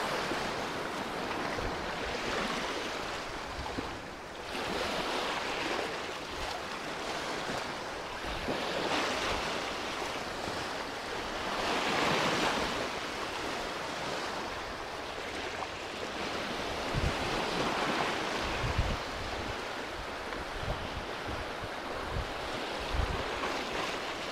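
Small waves washing onto a sandy shore, the surf swelling and fading every few seconds. Wind gusts buffet the microphone now and then, mostly in the second half.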